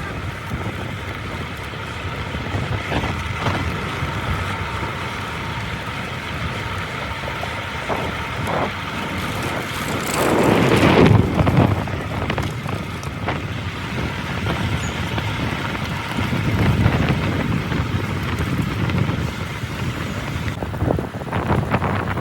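Wind rushing on the microphone over road traffic noise, with a vehicle passing loudest about ten seconds in and another swell of traffic noise a little later.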